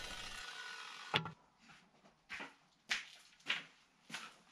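Wooden boards being handled and set down: a faint fading hiss at first, one sharp knock about a second in, then a few soft knocks.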